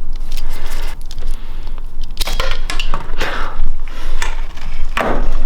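Small metal parts and tools being handled: a string of sharp clicks, clinks and short scrapes, with a steady low hum underneath.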